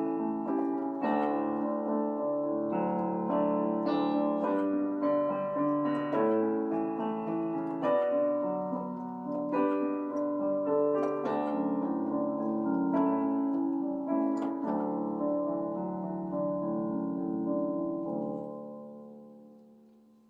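Piano music: a slow piece of struck notes and chords that ends on a held chord, which rings out and fades away in the last two seconds.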